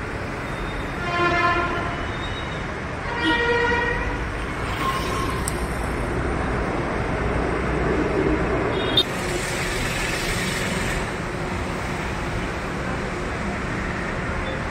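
Road traffic with vehicles passing, and two short horn honks of different pitch about one and three seconds in. A single sharp click comes about nine seconds in.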